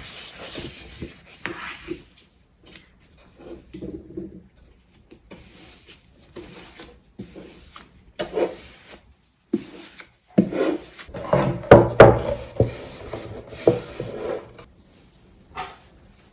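A sheet of paper rustling and rubbing against a wooden panel as it is handled and folded over the panel's edges for water-stretching, in scattered strokes. There is a louder, busier stretch of rubbing from about ten seconds in.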